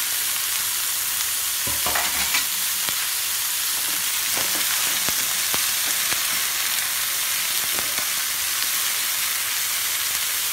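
Cauliflower florets and potato pieces sizzling in hot oil in a steel pan, a steady frying hiss. A steel spoon clicks and scrapes against the pan now and then as the vegetables are stirred.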